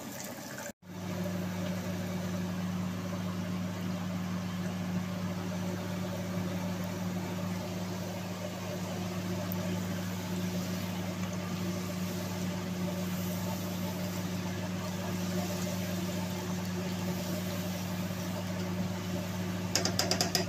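Chips frying in a wok of hot oil, the oil bubbling steadily over a constant low hum. Near the end a few light clicks of a spatula stirring in the wok.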